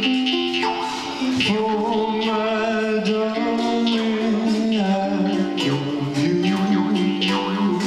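Live acoustic music: a man singing held notes to a strummed ukulele.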